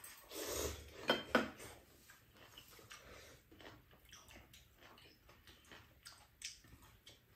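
Two people eating ramen noodles: a burst of noodle slurping, then chewing and chopsticks clicking against bowls, two sharp clicks a little after a second in and fainter ones after.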